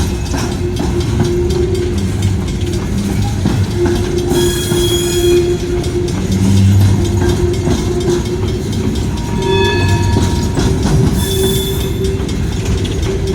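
Train rolling past close by with a loud, steady rumble, its wheels squealing in high tones about four seconds in and again near ten seconds.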